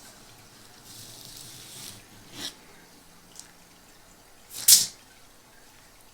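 Handling noises from packaging: a soft rustle about a second in, a short click, then a single loud, sharp snap near the end.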